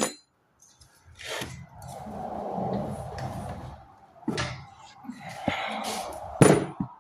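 Hand filing or scraping on sheet metal in long strokes, with a few sharp knocks in between, as mounting holes and edges are worked by hand.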